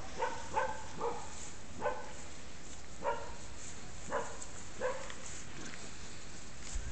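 A dog barking: a string of short barks, roughly one a second with uneven gaps.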